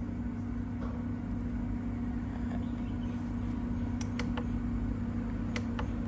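Steady low machine hum, with a few sharp clicks of a rice cooker's function buttons being pressed: three quick ones about four seconds in and one more near the end.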